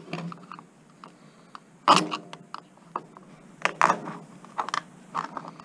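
Screwdriver prying a flat-pack IC chip off a circuit board: irregular sharp clicks and scrapes as the blade works along the chip's legs and they snap loose. The loudest snap comes about two seconds in with a brief metallic ring, and a cluster follows around four seconds.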